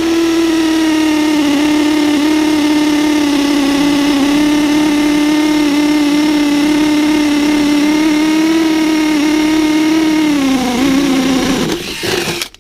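Power drill running steadily as it bores down through the wooden top plate of a wall, its motor speed dropping slightly near the end before it stops.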